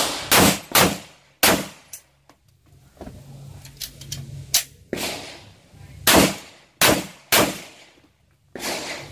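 Glock 41 Gen 4 .45 ACP pistol firing a string of shots: four quick shots in the first second and a half, a pause of about three seconds, then about five more shots spaced roughly half a second to a second apart.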